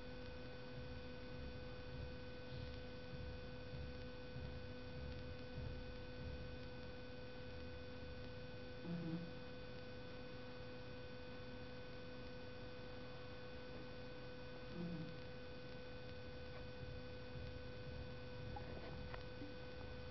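A sleeping toy poodle gives two short, low whimpers, about nine and fifteen seconds in, over a steady electrical hum.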